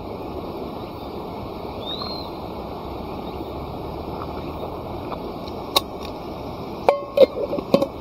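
Evening outdoor ambience: a steady low rushing noise under a continuous high chorus of insects, with a single short chirp about two seconds in. About six seconds in comes a sharp knock, then near the end a quick run of knocks and a clatter with a brief ringing tone.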